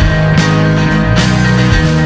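Background rock music: sustained electric guitar and bass notes with drum hits.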